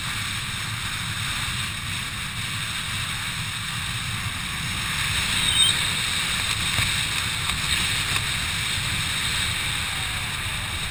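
Wind from a parachute descent buffeting the camera's microphone: a steady rush with a low rumble, a little louder from about halfway through.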